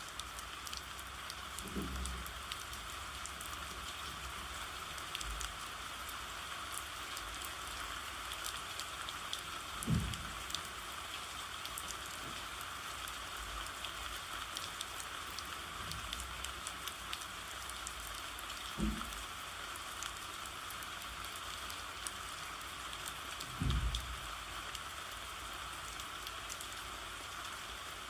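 Steady rain, an even hiss, with a few brief low thuds scattered through it.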